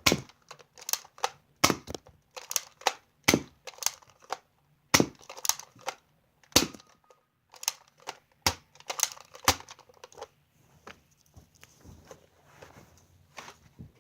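A quick, irregular run of sharp clicks and knocks from things being handled, growing softer and sparser over the last few seconds.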